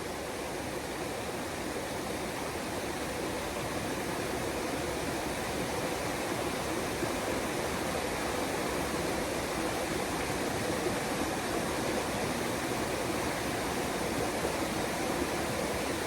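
Stream water rushing steadily over rocks, an even continuous rush that grows slightly louder.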